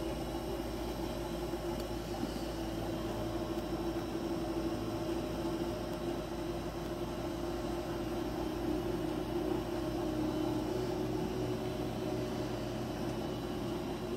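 A steady hum over an even hiss, unchanging throughout, with one prominent low-mid tone.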